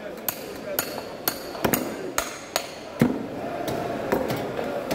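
A metal rod hammering the back of a cleaver blade to drive it through a large barracuda at the cutting board. It gives about ten sharp, ringing metallic clinks, roughly two a second.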